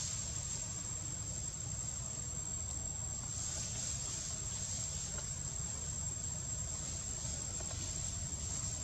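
Insects chirring outdoors: one steady, unbroken high-pitched tone, over a low steady rumble.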